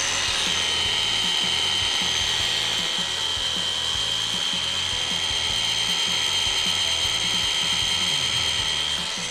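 Electric hand blender with a chopper bowl attachment running steadily, its motor whine holding one high pitch as the blades blend soaked cashews, onion and liquid into a dip. The pitch settles slightly lower about half a second in.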